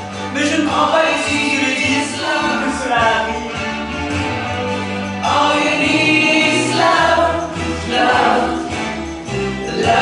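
Several voices singing a song together over instrumental accompaniment, with held low bass notes under the melody.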